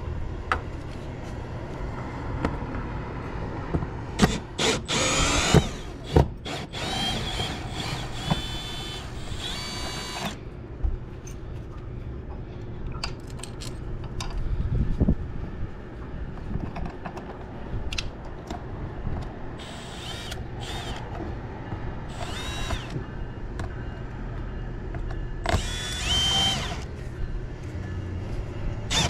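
Power drill driving long screws through vinyl siding in several separate bursts, its motor whine rising as it spins up, with clicks in between.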